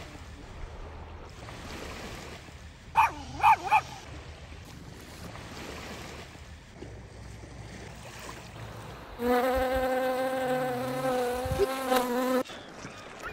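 A flying insect buzzing close by for about three seconds: a steady droning hum that starts and stops abruptly, over light outdoor wind. About three seconds in come three brief high-pitched sounds.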